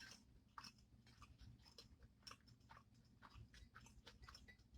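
Faint close-miked chewing: soft, wet mouth clicks and smacks, several a second.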